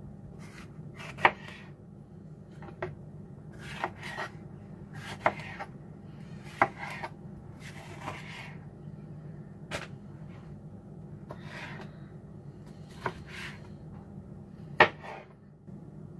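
Kitchen knife cutting a green bell pepper on a plastic cutting board: uneven knocks of the blade against the board, roughly one a second, with softer slicing between them. The loudest knock comes near the end.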